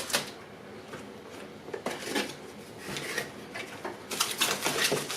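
Light clicks and knocks of boxed camera-kit items and packaging being handled, sparse at first and busier near the end.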